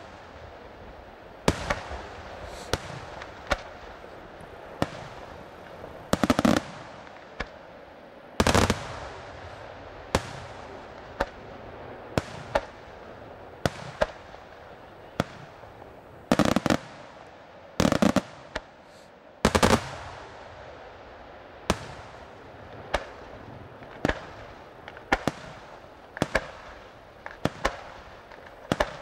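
Aerial firework shells bursting overhead: a string of sharp bangs, about one every second or two at irregular intervals, a handful of them louder and longer-lasting, over a steady background hiss.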